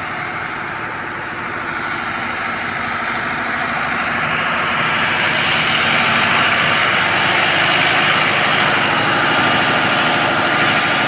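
A train's diesel engine idling while the train stands at the platform, a steady engine drone with a hiss above it. It grows louder over the first half and then holds.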